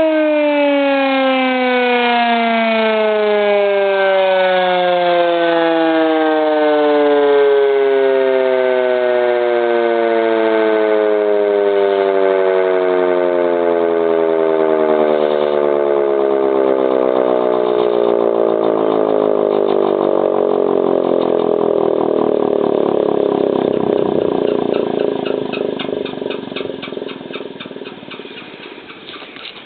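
S-40 electromechanical air-raid siren winding down: its wail glides steadily down in pitch over the whole stretch, becoming a rapid flutter as the rotor slows, and fades out over the last few seconds.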